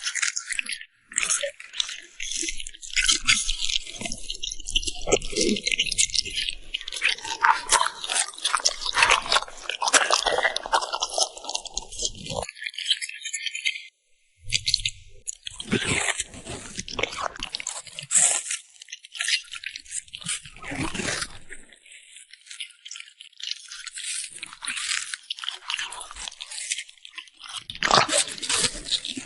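French bulldog chewing and crunching food close to the microphone, in quick irregular crunches with brief pauses.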